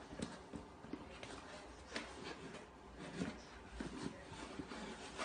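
Faint, irregular scuffs and light knocks of a cardboard box scraping and bumping along a wooden floor as a kitten pushes and noses at it.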